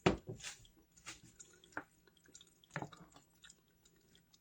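Wet squishing of cooked macaroni noodles and cheese sauce in a pot, with a sharper knock at the start and a few small wet clicks after it.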